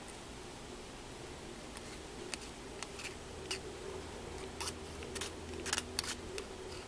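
Scattered sharp clicks and light scrapes of a hand tool working at the electronic EGR valve's connector housing, growing busier with a quick cluster near the end, over a steady low hum.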